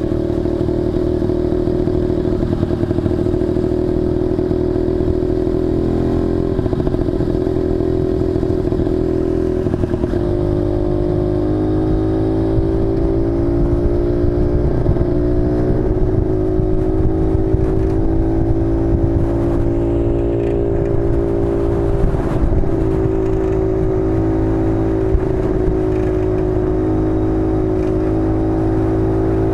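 Rex TT 150cc motorcycle engine running under way at a steady road speed, its pitch stepping up or down a few times as the speed changes.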